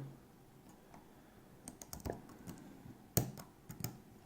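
Small metallic clicks of a five-pin pin-tumbler lock being single-pin picked: pins clicking as they set at the shear line under tension, a few faint ones, then a sharper click a little after three seconds in.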